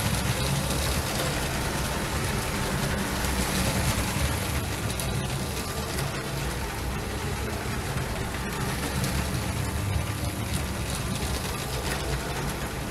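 Lego Holiday Train (set 10254) running on plastic track, driven by its Power Functions train motor: a steady motor hum with the wheels rolling over the track and faint clicks now and then.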